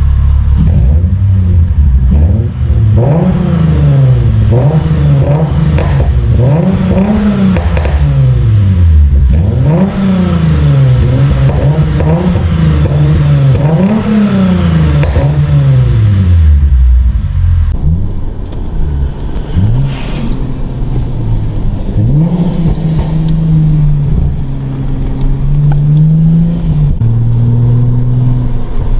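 Lexus IS350's 2GR-FSE V6, through an Invidia midpipe and Manzo axle-back exhaust, revved up and let off over and over, about every two seconds. With its custom tune it pops and crackles from the exhaust each time off the throttle. About two-thirds through the sound changes to a different take, with shorter rev blips and more crackling.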